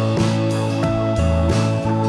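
Background music: a guitar-led instrumental track with sustained notes over a regular drum beat.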